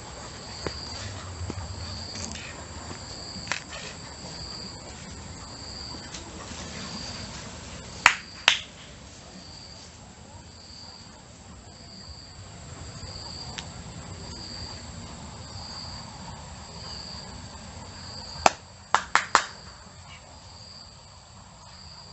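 An insect, cricket-like, chirping steadily on one high pitch, pulsing about once a second. Sharp loud clicks stand out over it: two about eight seconds in, and a quick run of four a little past halfway.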